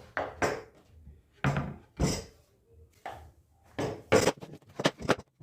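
Irregular knocks and clatters of wood and tools being handled, about nine sharp strikes, the loudest ones in the second half.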